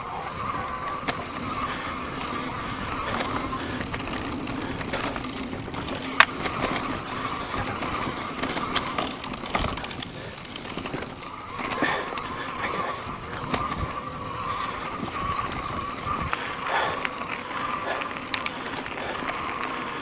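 Volition Max electric bike ridden over a dirt trail: tyres rolling and the bike rattling and knocking over bumps, with a sharp knock about six seconds in. A steady high whine, likely from the electric motor, runs under it and dips briefly about ten seconds in.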